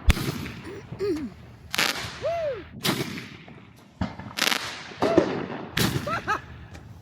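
Fireworks going off: about six sharp bangs at irregular intervals, each with a short trailing crackle.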